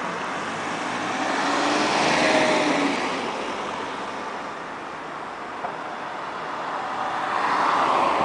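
Road traffic noise on a busy town street, heard from a moving car: a steady rush of tyres and engines that swells as a car passes about two seconds in and again near the end.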